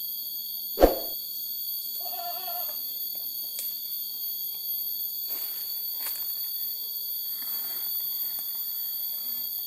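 A single sharp thump about a second in, over a steady high-pitched drone.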